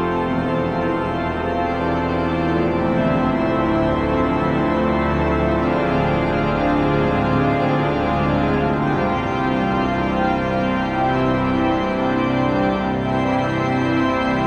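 Organ music: sustained chords held for a second or two each, shifting slowly from one to the next.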